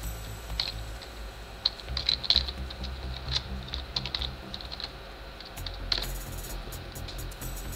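Computer keyboard keys tapped in short, irregular runs of light clicks, over a low hum.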